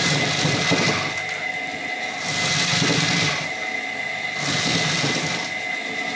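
Homemade maize sheller: a small electric motor runs with a steady high whine, and each maize cob pressed against its spinning roller rasps as the kernels are stripped off, in repeated grinding passes about every two seconds.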